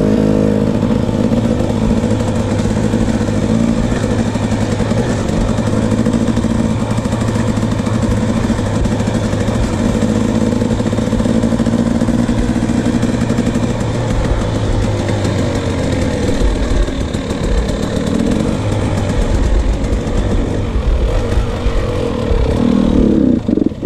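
KTM 300 two-stroke dirt bike engine running while riding along a dirt trail. Its note holds steady for the first half, then varies more as the throttle comes on and off.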